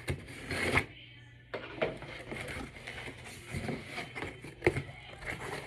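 Cardboard shipping box being opened and its packaging handled: scraping and rustling with several sharp knocks.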